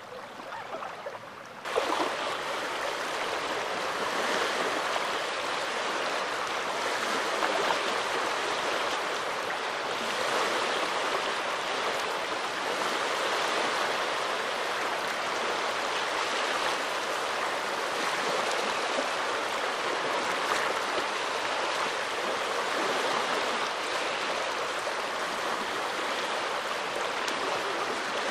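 Small waves washing steadily onto a Baltic Sea beach, a continuous rush of water that gets suddenly louder about two seconds in.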